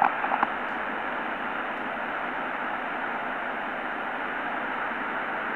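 Steady shortwave static hiss from a Tecsun PL-600 world band receiver in SSB mode, tuned to 3792 kHz on the 80-metre amateur band with no station transmitting.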